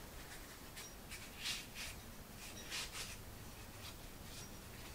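Faint rubbing of a cloth rag wiping a Zenith carburettor's alloy body, in a few short swishes, the clearest about a second and a half and nearly three seconds in.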